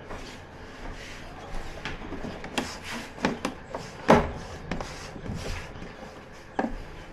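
Irregular clicks and knocks from handling TV parts during reassembly, with one louder knock about four seconds in.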